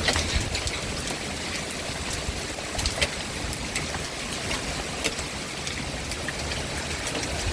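Hail falling hard: a steady hiss of the storm, dotted with many quick sharp ticks of single hailstones striking hard surfaces.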